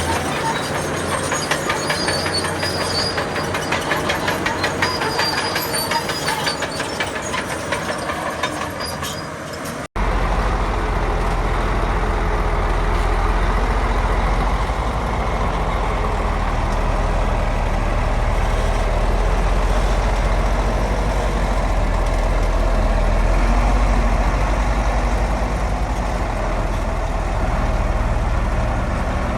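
Heavy diesel earthmoving machinery running. For about the first ten seconds an engine clatters rapidly and evenly. After a sudden cut, a steady low diesel drone carries on.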